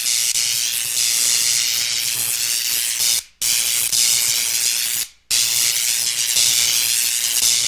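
High-voltage electric arc sound effect: a loud, harsh high hiss with a low hum underneath. It runs in three stretches, broken by brief drop-outs about three and five seconds in.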